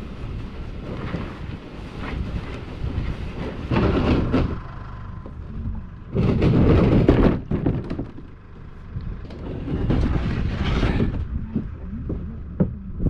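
Wind buffeting the microphone, a steady low rumble with two strong gusts, one about four seconds in and a louder one about six seconds in lasting over a second.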